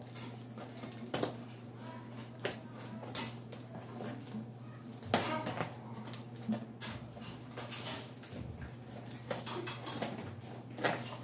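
Scissors snipping and slicing through clear packing tape and cardboard, with scattered crackles and snips, the sharpest about five seconds in, over a steady low hum.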